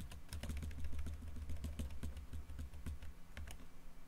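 Computer keyboard keys pressed in a quick, uneven run of clicks with dull thumps. The clicks thin out after about three and a half seconds.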